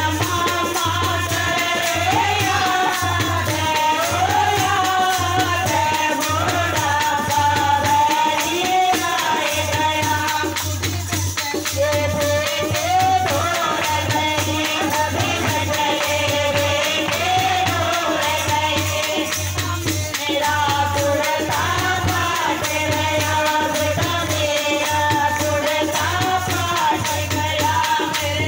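A woman singing a Haryanvi devotional bhajan, a melody with sliding ornaments, over a steady rhythm of shaken, jingling hand percussion.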